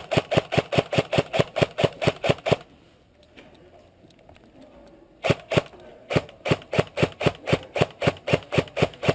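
Airsoft rifle firing rapid full-auto bursts, a fast string of sharp cracks at about seven or eight shots a second. One burst stops about two and a half seconds in, and a second burst starts about two and a half seconds later and runs on near the end.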